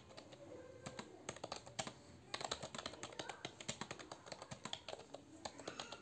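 Computer keyboard being typed on: a few scattered keystrokes, then from about two seconds in a fast, continuous patter of key clicks, as in a timed typing test at around 48 words per minute.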